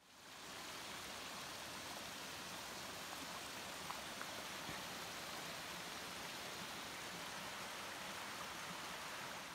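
Steady rush of shallow water running over rocks in a small stream, fading in at the start.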